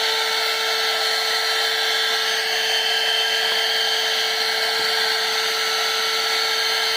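Handheld car vacuum cleaner running steadily, drawing air through its hose and small nozzle: a constant motor whine over a hiss of rushing air.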